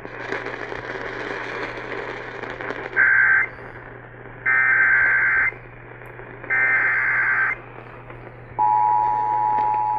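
Emergency Alert System tones over AM radio. After a few seconds of static hiss come three screechy SAME digital header bursts: a short one, then two of about a second each, spaced about a second apart. Then comes the steady two-tone EAS attention signal (853 and 960 Hz), which announces an emergency alert, here a severe thunderstorm warning.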